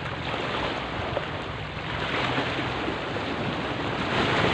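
Small sea waves washing and splashing against the rocks at the foot of a concrete seawall, with wind on the microphone. The wash grows louder about two seconds in and again near the end.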